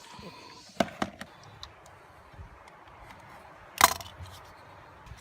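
Hand tools and heavy battery cable being handled on a bench: two light clicks about a second in, small scattered ticks, and one sharp metallic clack with a brief ring near four seconds in.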